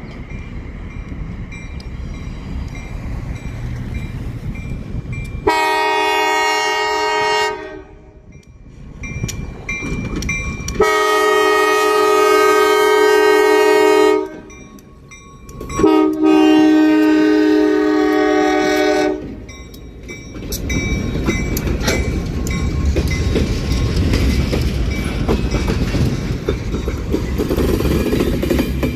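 Diesel locomotive rumbling as it approaches, then its air horn sounds three long blasts for a grade crossing, very loud up close. Then freight cars roll past, wheels rumbling and clacking over the rail joints.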